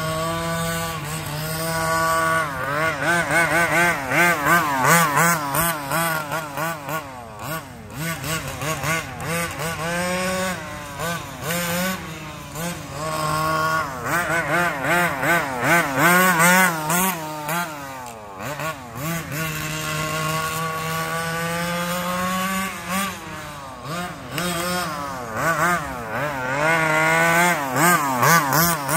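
The 30cc two-stroke gas engine of a 1/5-scale HPI Baja 5T RC truck being driven, revving up and down again and again as the throttle is worked. Its pitch rises and falls, with one longer, steadier run about twenty seconds in.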